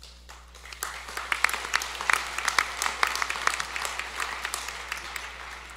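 Audience applauding, starting about half a second in, fullest in the middle and thinning out near the end.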